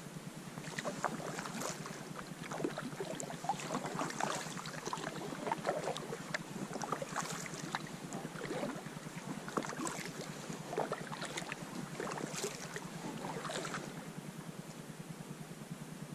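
Paddle strokes in a small paddled boat on a river: irregular splashing and dripping of water at each stroke, over a steady low hum.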